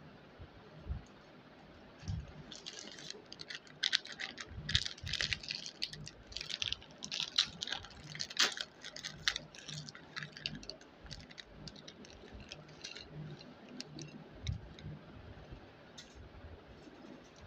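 Plastic snack packets crinkling and rustling as they are handled, with irregular crackles and light clicks, busiest in the first half and sparser later.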